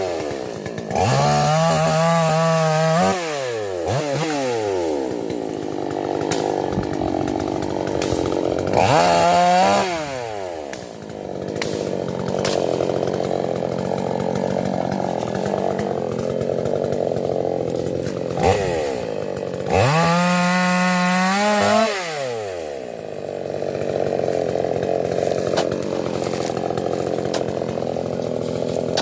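Toyama TCS58H two-stroke chainsaw idling, revved to full throttle three times. Each burst is held for one to two seconds before the engine drops back to idle.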